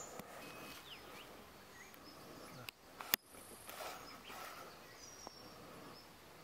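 Quiet outdoor ambience: faint, short bird chirps over a low steady hiss, broken by a sharp click a little after three seconds in.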